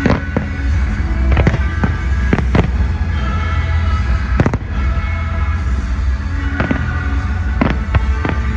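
Fireworks going off in a display, about ten sharp bangs at uneven intervals, over loud music with heavy bass.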